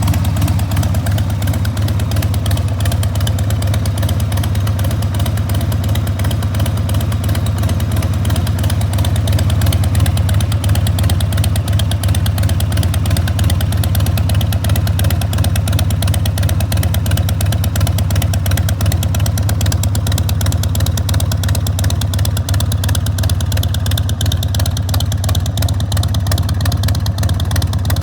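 1994 Harley-Davidson XLH1200 Sportster's 1200 cc Evolution V-twin idling steadily, its exhaust running out through Screamin' Eagle turnout silencers.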